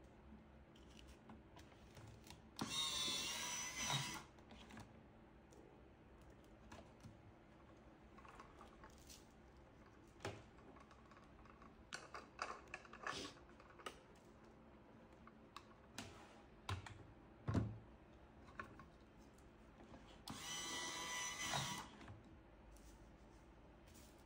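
Electric cigarette-rolling machine's small motor running twice, each run lasting about a second and a half with a steady whine, and scattered clicks and taps of handling between the runs.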